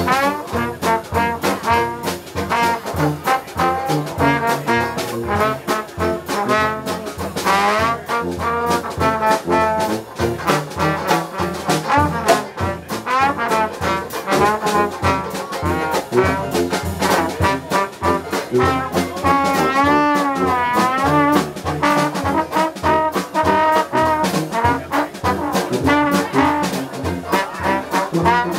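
Live Dixieland jazz with the trombone leading over tuba and a drum kit keeping a steady beat. About twenty seconds in, the trombone holds one wide, wavering note.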